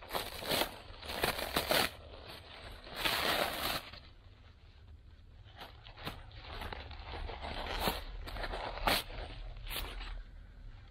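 Dry paper wasp nest being pulled apart by hand: the papery envelope layers crackle and tear, loudest in the first four seconds, then softer crinkles with a few sharp snaps.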